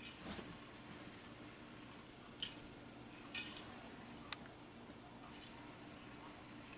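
Cats playing with an interactive cat toy: two brief, quiet jingling rattles, one about two and a half seconds in and another about a second later, over a faint steady hum.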